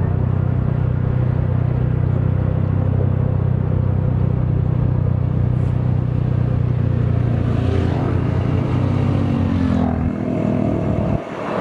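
Motorcycle engine running steadily as it is ridden. Its note rises over a few seconds toward the end, then drops away briefly just before the close.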